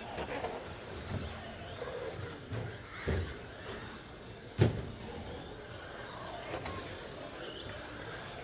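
Electric stock-class RC trucks (Traxxas Slash) racing. Their faint motor whine rises and falls under tyre noise, broken by several sharp knocks of trucks hitting the track, the loudest about four and a half seconds in.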